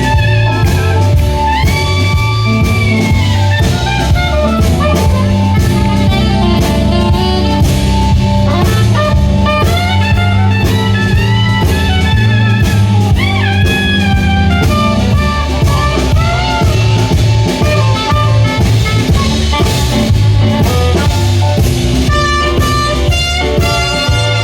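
Instrumental break of a blues song: a wavering lead melody plays over a steady bass line and a drum kit beat.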